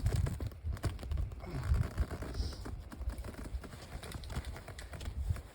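Irregular light clicks, taps and scrapes of a tent pole end being fitted into the tent's corner fitting, with handling rustle.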